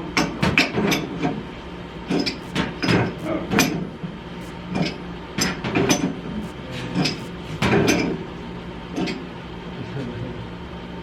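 Irregular knocks and clanks of tools and metal parts during boiler pipe work, a dozen or so sharp strikes at uneven intervals.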